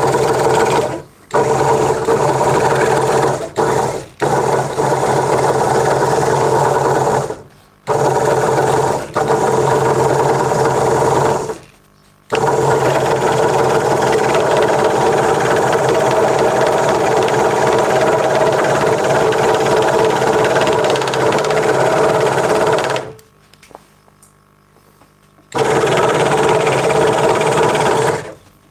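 Craftsman 22-inch scroll saw running and cutting a curved outline in a wooden board: a steady, sewing-machine-like hum and clatter of the reciprocating blade. It cuts off abruptly and comes back several times, the longest break about 23 seconds in.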